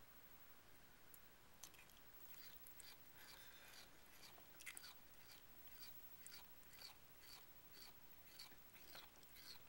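Cat making a faint, rhythmic sandpaper-like rasping, a short scraping stroke about twice a second, starting a second or two in.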